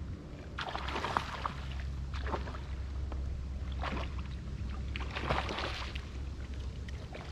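Small waves lapping and washing against a rocky, oyster-covered shoreline, in about four separate surges, over a steady low wind rumble on the microphone.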